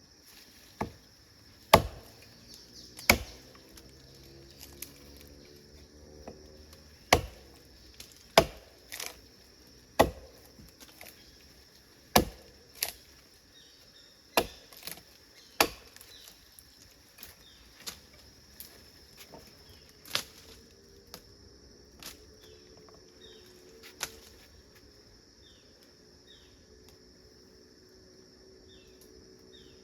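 A blade chopping into tree wood: about seventeen sharp, irregular strokes every second or two, thinning out and stopping about 24 seconds in. A steady high shrill of insects runs behind.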